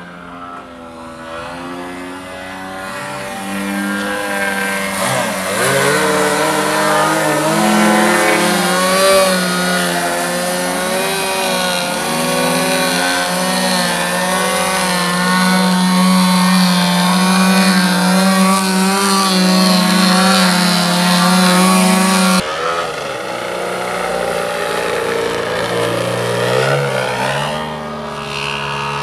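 Radio-controlled aerobatic model airplane's engine running, its pitch rising and falling with the throttle and growing louder over the first several seconds. About two-thirds of the way through the sound changes abruptly to a quieter engine note that still rises and falls.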